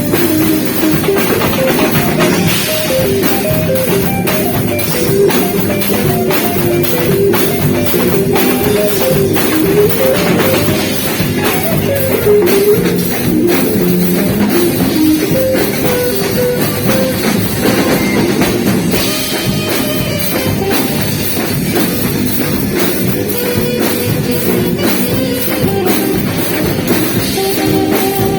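Live band playing a beiradão medley: a drum kit keeps a busy, driving beat under a saxophone melody, with guitar and bass.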